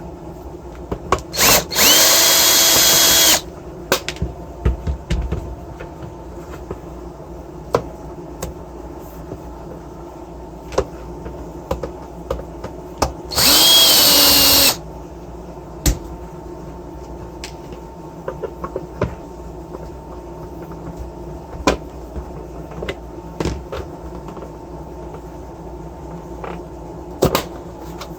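Power drill-driver removing screws hidden under the feet of a soldering station's case. The motor runs twice, for about a second and a half each time: once a couple of seconds in and again about halfway through. Each run winds down in pitch as it stops. Small clicks and knocks of the case being handled come between the runs.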